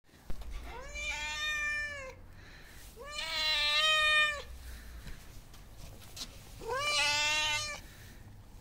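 A hungry stray cat meowing for attention: three long, drawn-out meows about two to three seconds apart.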